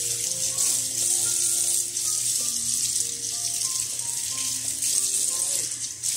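Kitchen tap running steadily into a sink while a water-filter tube is rinsed under the stream. Soft background music with held notes plays under it.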